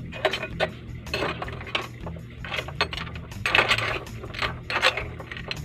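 Clam shells clinking against each other and against a metal spoon and pan as the clams are picked out of the sauce. It is an irregular string of sharp clinks and short scrapes, loudest a little past halfway.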